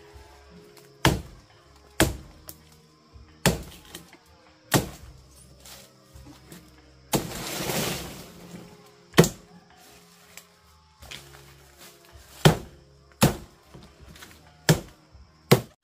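Sharp knocks of a tool striking wood, about nine irregularly spaced blows, with a burst of rustling scraping about seven seconds in. Soft background music plays underneath.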